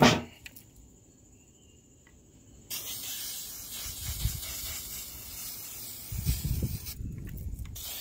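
Aerosol can of black flat enamel spray paint hissing as it sprays, starting a few seconds in, breaking off briefly near the end and starting again. A few low rumbles sound under the hiss.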